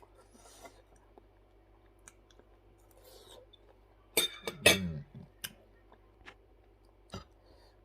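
Person eating kinilaw, raw fish in lime and chili, with their hands: quiet chewing and mouth smacks. About halfway through come a few sharp clicks and a brief voiced sound.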